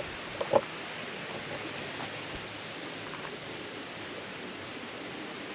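Steady rushing hiss of a creek flowing over rocks. A couple of short sharp snaps about half a second in stand out above it.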